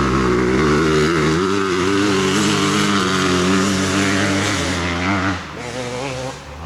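Off-road dirt bike engine running loud and close at a fairly steady pitch, then falling away about five seconds in as the bike moves off.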